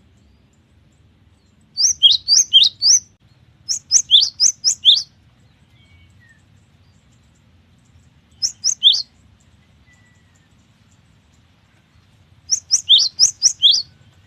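Cinereous tit (gelatik batu) singing four short phrases of quick, sharp repeated high notes. Each note drops in pitch, and there are pauses of a second or more between the phrases.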